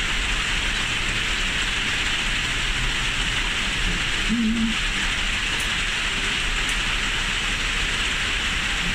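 Steady hiss of rain.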